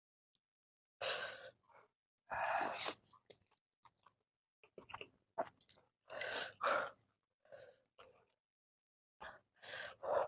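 Noodles being eaten: chewing and slurping mouth sounds in short noisy bursts, about one every second or two.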